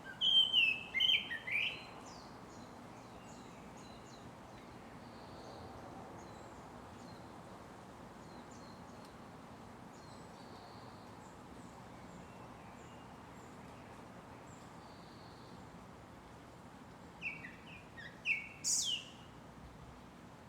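Japanese thrush singing: a short phrase of clear whistled notes at the start and another about seventeen seconds in, the second ending in a thin, very high note. Faint high chirps come and go in between.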